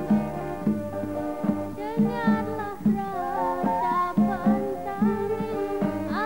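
A live band playing, with a steady drum beat about twice a second; a woman's singing voice comes in about two seconds in and carries the melody over the band.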